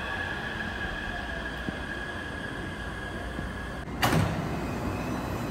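Metro train standing at a platform with a steady high tone from the stopped train, then about four seconds in a sudden loud rush as the doors slide open.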